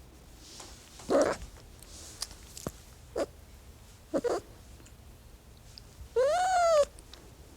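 Angry cat: a loud hissing outburst about a second in, a few short snarling spits, then one drawn-out yowl that rises and falls in pitch near the end.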